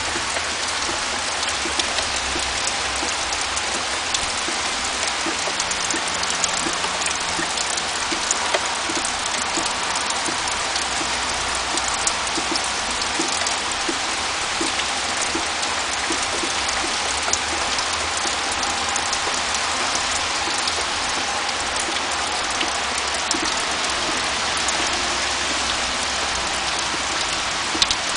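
Steady rain falling, with many individual drops tapping sharply on a nearby surface.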